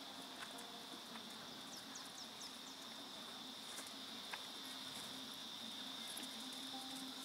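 Faint, steady, high-pitched insect chorus droning without a break.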